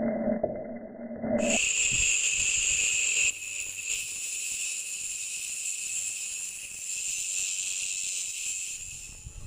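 Homemade angle grinder, a 775 DC motor driving a cutting disc, making a steady high-pitched grinding hiss that takes over about a second and a half in from a lower hum.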